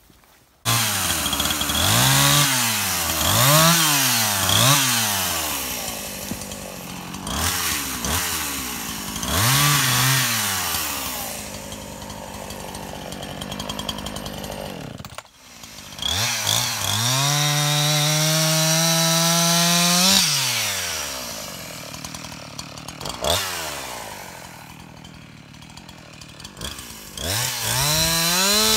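Two-stroke chainsaw revved up and down in quick repeated blips, settling back to idle in between. Later it is held at high revs for about four seconds, and near the end it revs up again as it cuts into a log.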